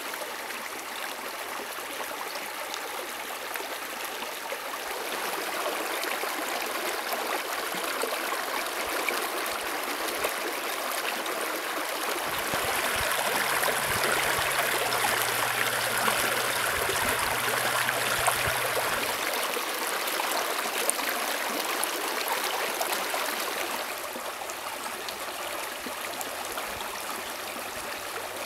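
Shallow creek water running over a low line of rocks in a steady rush, louder for about ten seconds in the middle.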